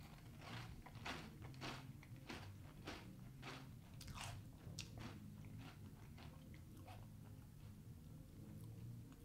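A mouthful of crunchy breakfast cereal with marshmallows in milk being chewed: a faint crunch roughly every half second, growing weaker after about five seconds.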